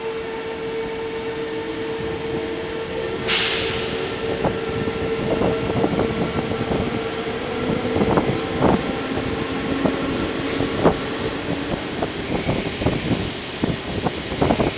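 NS Sprinter (SGMm) electric multiple unit pulling away and accelerating, heard from its open window. A steady electric hum runs under a short burst of air hiss about three seconds in. The wheels start clicking over rail joints and points, the clicks coming faster and louder as the train picks up speed.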